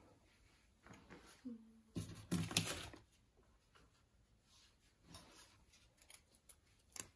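Paper sticker sheet being handled, with a scraping rustle about two to three seconds in as a sticker is worked off the sheet, softer rustles later and a light click near the end.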